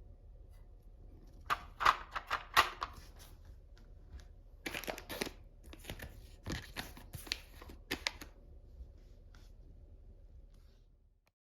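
Plastic toy parts and packaging being handled, with sharp clicks and rustling in two spells: one lasting under two seconds, then one lasting about three and a half seconds. Between and after them there is only faint room tone, and the sound cuts off completely just before the end.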